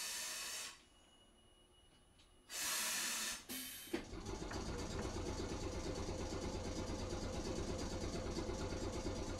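Tosaden streetcar letting off short bursts of compressed-air hiss, then a clunk, after which its running noise sets in about four seconds in and carries on steadily with a faint hum as the tram moves off from a stop.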